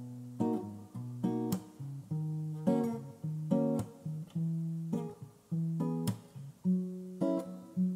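Background music: an acoustic guitar plucked and strummed in a slow, gentle pattern, with no singing.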